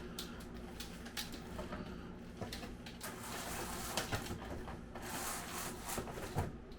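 Bead chain of a roller blind being pulled, its chain and clutch mechanism clicking and rattling as the shade rolls, with two longer rustling stretches partway through.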